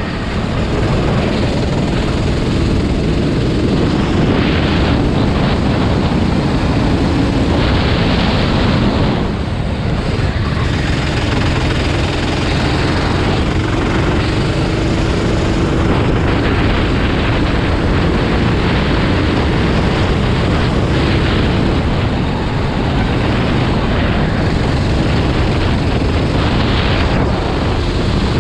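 Engines of many racing vehicles running loudly and continuously. Through the middle, one engine's note drifts slowly lower in pitch.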